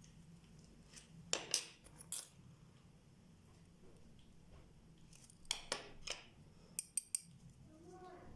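Small metal watch parts and tools clicking and clinking against each other and the bench, in three short clusters of light clicks.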